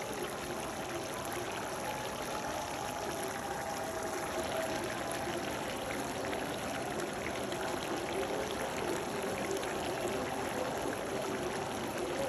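Pan of chicken curry simmering on the stove: a steady, watery bubbling.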